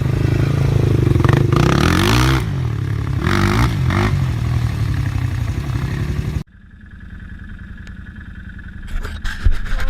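ATV engine running hard and revving, its pitch swinging up and down twice. It cuts off abruptly about two-thirds through, giving way to a quieter low engine hum and a few knocks near the end.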